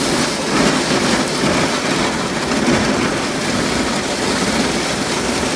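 Ford F-350 pickup plowing deep snow with a V-blade: a loud, steady rushing noise of the truck and the snow being pushed, with no distinct engine note.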